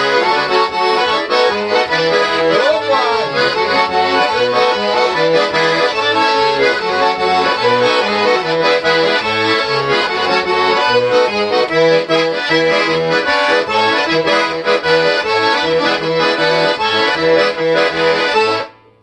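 A freshly repaired 1961 Tula four-voice garmon played in a lively dance tune: a melody over a regular, rhythmic bass-and-chord accompaniment. The playing stops abruptly near the end.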